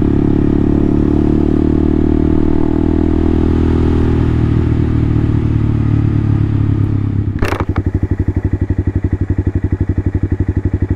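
Honda motorcycle engine running steadily as the bike slows. About seven seconds in there is a sharp click, and the engine then settles into an even idle, pulsing about ten times a second.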